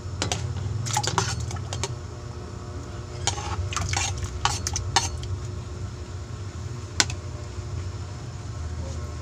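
Metal spoon scraping and clinking against a ceramic plate and the rim of an aluminium pot as sliced tomatoes are pushed into the water: a series of sharp clinks, the loudest about seven seconds in, over a steady low hum.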